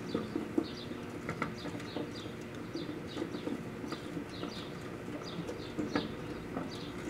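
Microwave oven running with a steady hum while floppy disks burn inside it, with scattered sharp crackles and pops from the burning plastic. A quick, high chirping repeats throughout.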